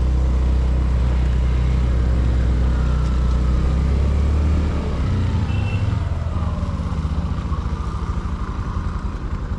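Honda Activa scooter's engine running while ridden. Its steady drone eases about halfway through to a lower, pulsing beat.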